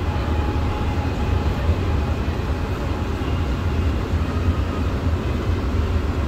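Steady low rumble inside a Xiamen Metro Line 3 car as the train runs along the track.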